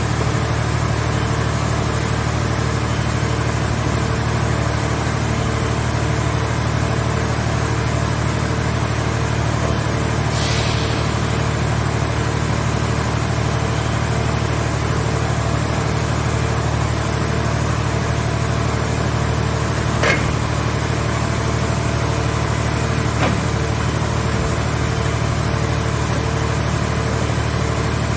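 Mobile scrap car baler's power unit running steadily with a low hum. A short hiss comes about ten seconds in, and two sharp metallic clicks come about twenty and twenty-three seconds in.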